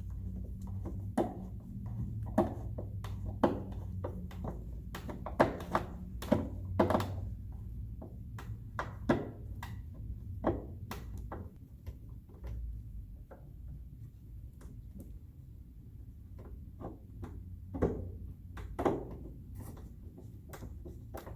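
Irregular clicks and knocks of hard plastic dollhouse parts being handled and screwed together, over a low steady hum.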